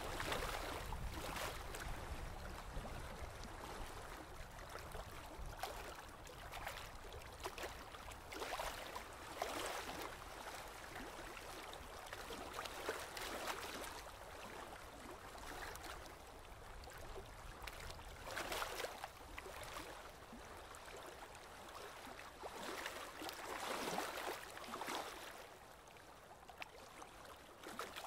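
Choppy river water lapping and splashing against a pier, coming in irregular swells every few seconds.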